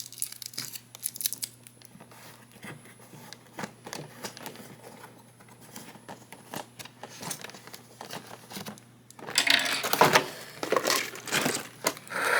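Scattered small clicks and rustles of a cardboard packaging insert being handled while the screw holding the toy's foot to it is turned loose, then louder crinkling and scraping of cardboard and plastic about nine seconds in.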